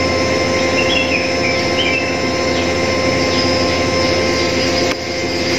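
Steady machine hum holding several fixed tones, with a few short bird chirps about a second in.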